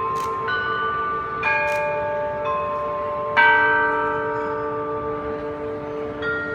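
Bells struck one after another, about once a second, each ringing on and overlapping the last over a steady hum of earlier bells. The loudest strike, with a deeper tone, comes about halfway through. Two sharp clicks sound in the first two seconds.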